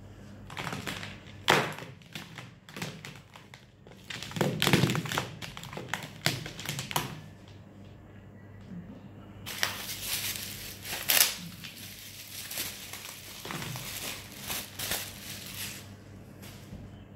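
Packaging being handled and opened: irregular rustling and crinkling with sharp taps and knocks, in two bouts separated by a short lull.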